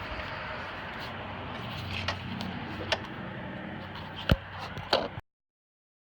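Steady background hiss with a few sharp clicks and knocks, then the sound cuts off suddenly to dead silence about five seconds in.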